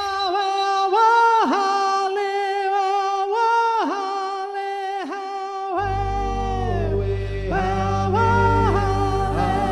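Music: a solo singing voice holding long notes, each phrase ending in a downward slide. About six seconds in, a low sustained drone enters beneath it.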